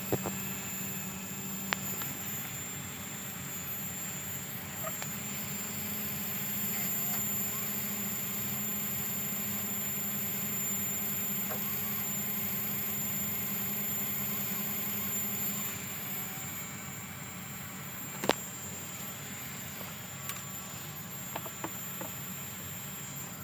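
Hubsan H122D micro quadcopter's motors running with a steady high whine, a little louder in the middle, with a few sharp clicks in the later part, the strongest about 18 seconds in; the drone has a failing motor that clicks.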